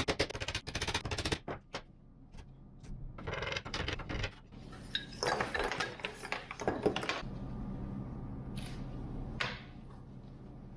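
Workshop clatter: a quick run of clicks, then scattered knocks and rattles of hard tools or small parts being handled. A steady low hum comes in about seven seconds in.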